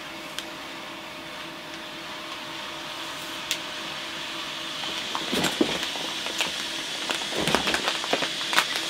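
Flameless heater of a self-heating ration pack reacting with the added water: a steady hiss that slowly grows louder, with scattered crackles from about five seconds in.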